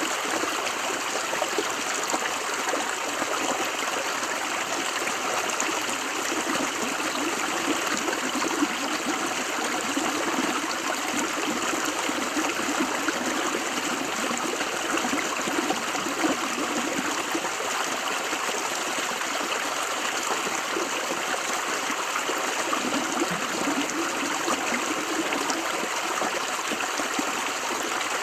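River water running steadily over rocks, a constant rushing with fine bubbling and trickling texture.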